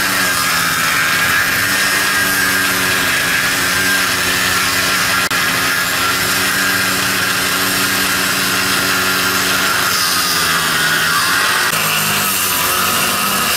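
Handheld angle grinder with a cutting disc running and cutting into the painted wooden bow planking of a fishing boat: a steady motor whine under a gritty cutting hiss. The whine sags a little in pitch about ten seconds in, as the disc is pressed in harder.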